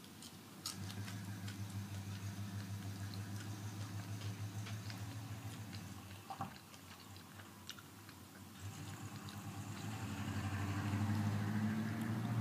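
Someone chewing crunchy nacho tortilla chips: rhythmic chewing with small crackling crunches. Near the end a low steady hum grows louder.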